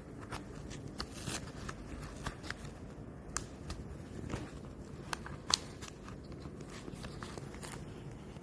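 Self-adhesive faux leather patch being handled: scattered small clicks and crinkles, with one sharper click about five and a half seconds in, over a low steady hum.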